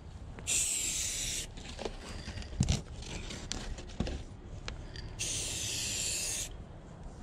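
Aerosol can of gold spray paint spraying in two short bursts of hiss, each about a second long, the second about five seconds in. A few light knocks fall between the bursts.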